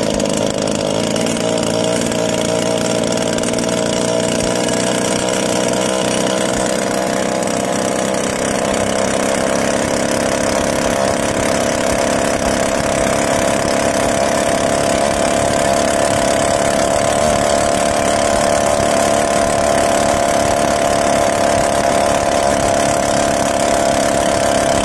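Small boat engine running steadily, driving a fibreglass skiff along the river, its pitch edging up slightly over the stretch.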